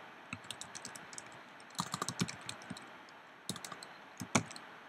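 Computer keyboard typing in three short bursts of key clicks, with one louder keystroke near the end.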